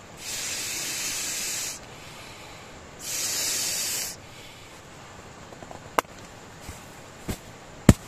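Two steady bursts of hissing that start and stop abruptly, the first about a second and a half long and the second about a second, followed by a few sharp clicks near the end.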